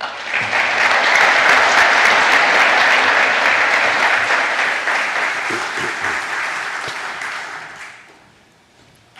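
Audience applause in a hall after a speech, loud for several seconds, then thinning and dying away near the end.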